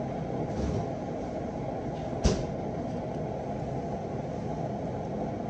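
A kitchen door shutting with a single sharp knock about two seconds in, over a steady low hum.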